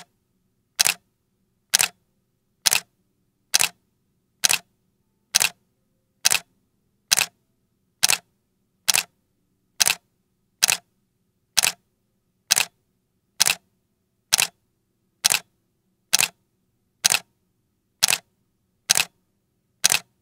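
Camera shutter clicks repeating at an even pace, a little under once a second.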